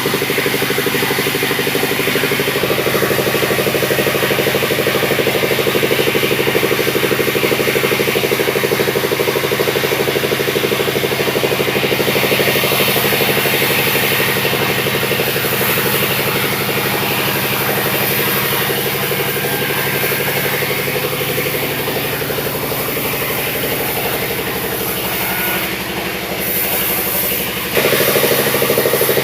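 Sawmill engine running steadily while waru logs are sawn into boards. Its note shifts a couple of seconds in and again near the end, and a high hiss joins partway through.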